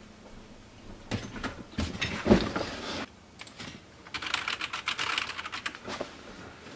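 Shuffling and a thump about two seconds in as a person sits down in an office chair, then about two seconds of rapid typing on a computer keyboard.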